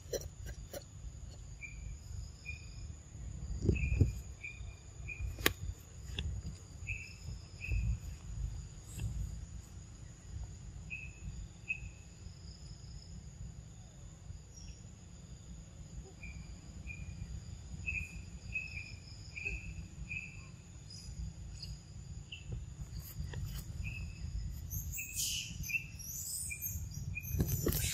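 Forest insect ambience: a steady high-pitched insect drone with short chirps repeating in runs, over a constant low rumble. There are a couple of sharp clicks, and a louder burst near the end.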